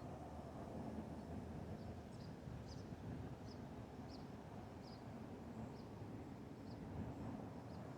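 Faint outdoor ambience: a steady low background rumble with a small bird chirping repeatedly, short high chirps about once a second from about two seconds in.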